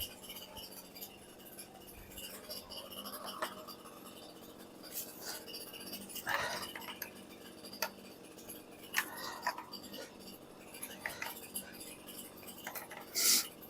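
Faint, scattered metal clinks and handling noises, with a few brief scrapes and a short hiss near the end.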